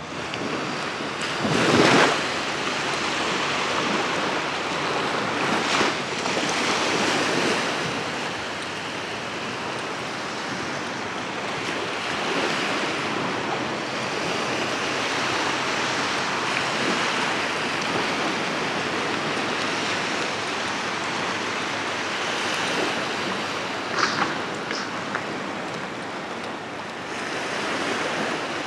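Small sea waves washing onto a sandy beach: a steady surf hiss, with a louder surge about two seconds in.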